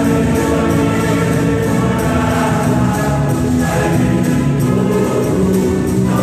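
Background music: a song with held pitched notes over a steady beat.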